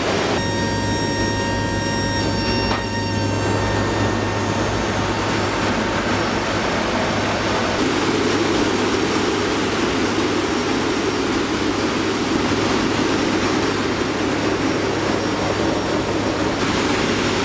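Military transport aircraft's engines and airflow running steadily inside the cargo cabin in flight: a loud continuous rumble and rush with a low hum beneath. A high steady whine at several pitches sits on top for the first few seconds, and the rushing grows heavier about eight seconds in.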